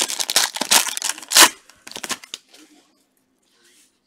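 A trading-card pack wrapper is torn open and crinkled by gloved hands. It is a dense burst of ripping and crinkling, loudest about a second and a half in. Fainter rustling follows and dies away.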